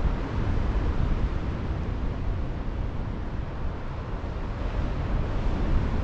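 Wind buffeting the microphone: an uneven low rumble over a steady outdoor rush of noise.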